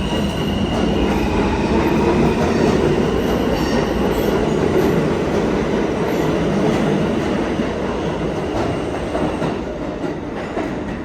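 New York City subway train running along the station track with a steady rumble of wheels on rail and a faint high wheel squeal at first, the sound easing off over the last few seconds.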